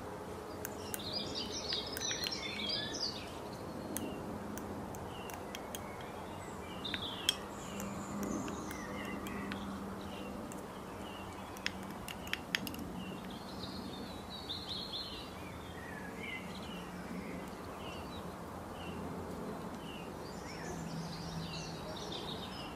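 Small birds chirping and trilling continuously. About a third of the way in and again near the middle, a few sharp light taps, glass against a glass bowl.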